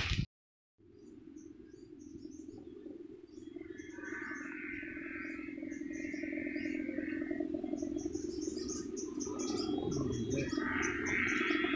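Rattan sendaren (kite hummer) on a Madurese sawangan kite humming in the wind, a steady drone that starts about a second in and slowly grows louder. Birds chirp in short high notes over it.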